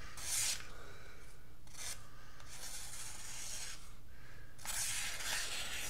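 Microtech MSI folding knife's blade slicing through a sheet of lined paper in a paper-cutting test of its edge: several short cutting strokes, then a longer slice near the end.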